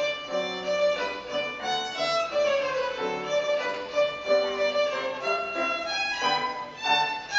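Solo violin playing a melody of quick and held notes, with a falling run about two to three seconds in, accompanied by grand piano.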